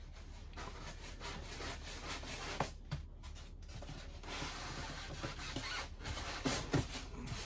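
Styrofoam packing and cardboard rubbing and scraping against each other as packaging is handled in an open box, with a few short knocks and a busier stretch of scraping near the end.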